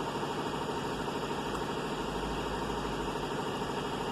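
Chevrolet Suburban's V8 engine idling steadily.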